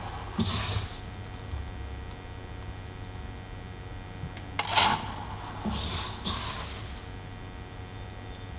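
A few short rustling, scraping noises of things being handled, about a second in and again from about five to seven seconds, over a low steady hum.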